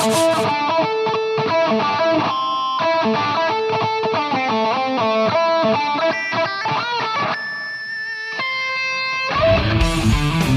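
Background music: an electric guitar plays a melodic instrumental line, and about nine seconds in a heavier, fuller section with a strong low end and a steady beat comes in.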